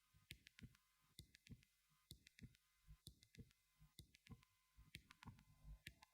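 Near silence with faint, short clicks and soft thumps at a steady pace, a little over two a second.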